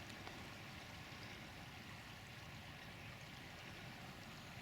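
Faint, steady rushing of the River Swale in full flood, a swollen river running high over its banks.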